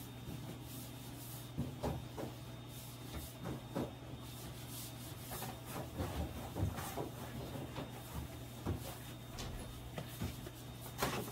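Gloved hands pressing and rubbing batter-coated sandwiches into a metal tray of coarse breadcrumbs: soft, irregular rustling and scraping with occasional light knocks, over a steady low hum.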